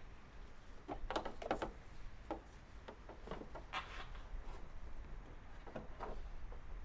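Scattered light knocks and clicks, a few at a time, with some rubbing, as of things being handled.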